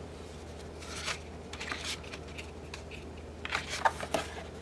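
Thick cardstock pages of a 12-by-12 paper pad being turned by hand: sheets rustling and flicking, with a few soft flaps about a second in and a quicker cluster near the end.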